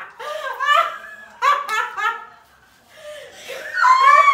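People laughing in several short bursts, with a loud, higher peal of laughter near the end.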